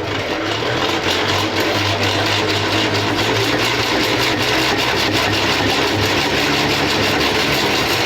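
Centrifugal honey extractor spinning at a steady speed with a constant mechanical hum, giving the frames a second short spin to throw out the honey still left in the comb.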